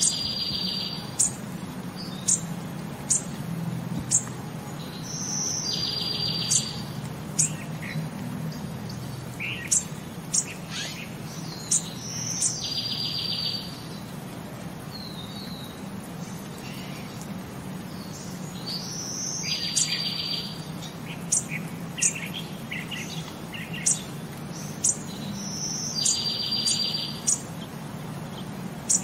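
High bird chirps scattered throughout, with a short rapid trill that comes back about every six and a half seconds, over a low steady hum; the even repeats point to a looped nature-sound track.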